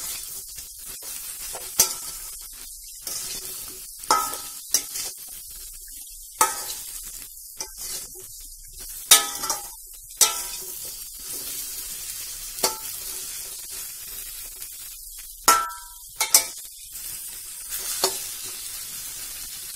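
Brinjal pieces sizzling in hot mustard oil in a steel kadai, with a steady hiss. A metal spatula scrapes and clanks against the pan every second or two as they are stirred.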